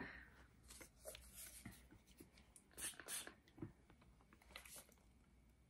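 Near silence, with a few faint sniffs and small handling sounds of a plastic fragrance-mist bottle; two quick sniffs about three seconds in are the loudest.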